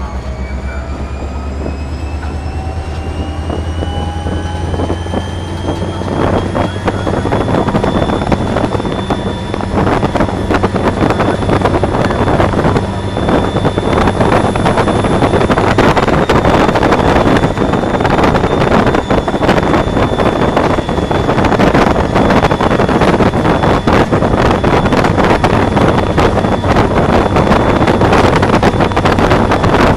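An EMD SD40-2 diesel locomotive's 16-cylinder two-stroke engine, heard from inside the cab while the locomotive works under power: a low drone, with a whine that climbs in pitch over the first several seconds and then holds steady. Wind and rail noise grow steadily louder as the train gathers speed.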